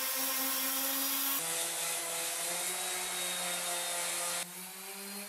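Metabo random orbital sander running, its pad scrubbing sandpaper over the rust-pitted steel of a hatchet head to take off corrosion. The motor's hum over a steady rubbing hiss shifts in pitch abruptly about a second and a half in and again near the end, and is quieter after the second change.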